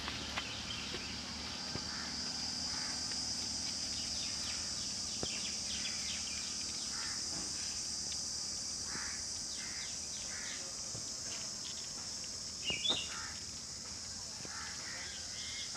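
Outdoor garden ambience: a steady high insect hiss with scattered bird chirps, and a louder burst about 13 seconds in.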